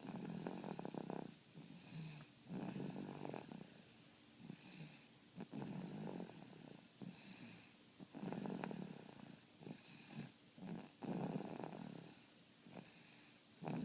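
Steady snoring: a snore about every two and a half to three seconds, each lasting about a second, with shorter, softer breaths between.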